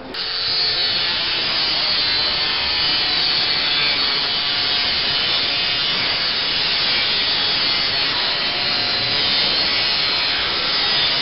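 Angle grinder with a cut-off wheel cutting into a steel tin can, a loud, steady grinding that starts abruptly and runs without a break.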